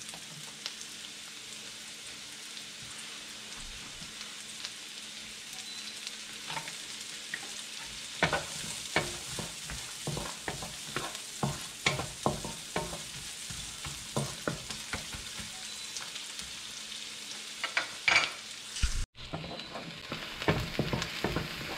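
Diced onion and garlic sizzling in melted butter in a nonstick wok. From about eight seconds in, a wooden spatula stirs and scrapes across the pan in quick, repeated strokes.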